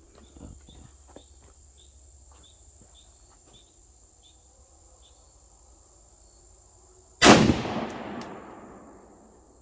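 Crickets chirping in a faint, even rhythm, then about seven seconds in a single 6.5 Grendel rifle shot, fired through a 20-inch barrel, with a long echo dying away over about two seconds.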